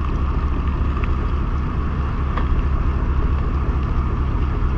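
The fishing boat's engine running with a steady low rumble, mixed with wind on the microphone.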